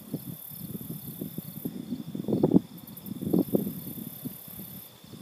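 Insects chirping outdoors in high, pulsed trills that come and go every second or two, over irregular low rustling and bumps.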